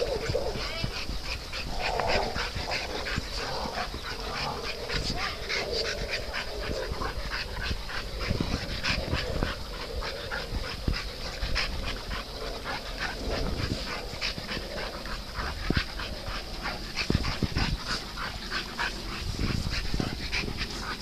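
Several dogs playing together, making dog noises over a dense patter of short clicks and ticks.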